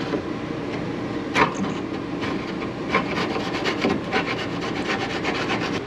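Rapid, repeated scraping strokes on wood.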